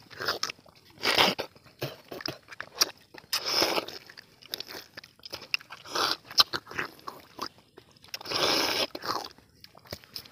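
Two people biting into and eating tender palmyra fruits (ice apples), with mouth sounds coming in irregular bursts about every two seconds and small clicks between them.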